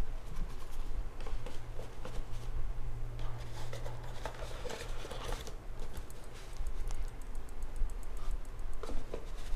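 Handling noises at close range: light irregular clicks, taps and rustling as small objects are picked up and set down, with a low hum through the first half.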